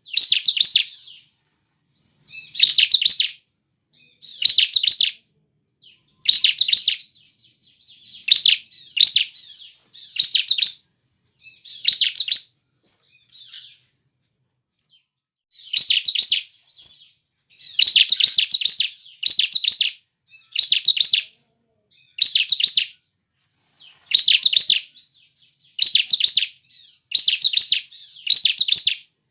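Bar-winged prinia (ciblek) singing in a series of short, high, fast-trilled phrases, each about a second long and repeated every second or two, with a pause of a few seconds midway.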